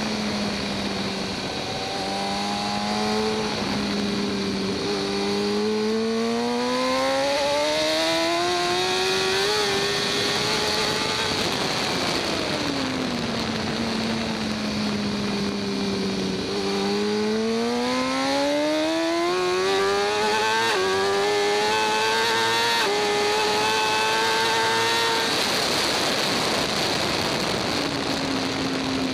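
A 2014 BMW S1000RR's inline-four engine racing along a track: it revs up under hard acceleration with quick upshifts, falls away as the throttle closes about eleven seconds in, holds a steady note through a corner, then climbs through the gears again with two more upshifts before backing off near the end. A steady rush of wind noise runs underneath.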